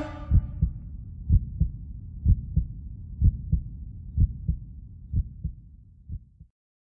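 Heartbeat sound effect: paired low thumps, about one beat a second, growing fainter until they stop shortly before the end. The tail of a held low musical chord dies away in the first half second.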